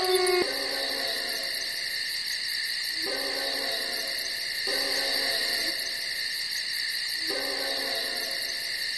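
Night ambience: a steady high-pitched insect chorus, with a long, low hooting call that repeats about every two and a half seconds.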